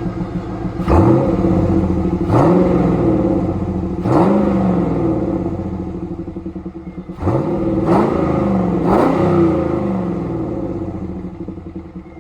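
1998 Pontiac Trans Am's LS1 V8 idling and revved six times: each throttle blip sweeps quickly up and falls back to idle, the last three coming in quick succession. The engine has recently been revived after sitting unrun for 15 years.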